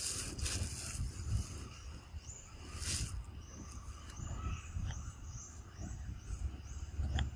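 Short, high, slightly rising chirps repeat roughly twice a second over a low rumble, with a couple of brief rustling bursts.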